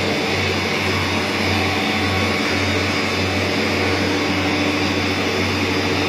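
Steady whirring of woodworking machinery on a finger-jointing line, with a low hum that swells and fades about twice a second.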